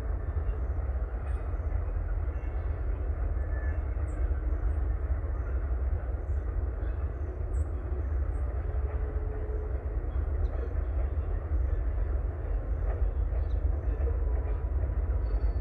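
Distant rail yard ambience: a steady low rumble of diesel locomotives working the yard, with faint short high squeaks now and then.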